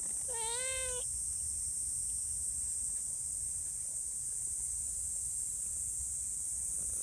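A tabby-and-white cat gives one short meow that dips and rises in pitch in the first second. A steady high insect drone runs underneath throughout.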